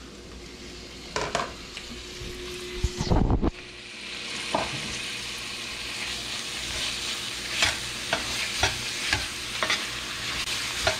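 Raw chopped shrimp tipped into a hot stainless steel sauté pan of diced vegetables, with a loud, brief burst as they go in about three seconds in. Frying sizzle then builds and holds while a metal utensil scrapes and taps against the pan again and again.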